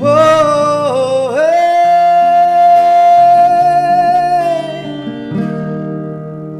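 Background music: a male voice holds a long sung note over acoustic guitar.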